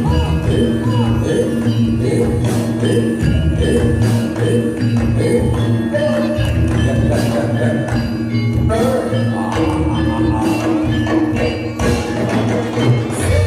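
Javanese gamelan music accompanying a jathilan dance: ringing metallophones and gongs over a steady drum beat, with jingling bells.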